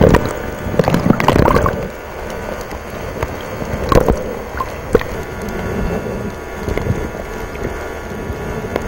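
Water bubbling and sloshing around an underwater camera, busiest in the first two seconds, with a few sharp clicks later and a steady faint hum underneath.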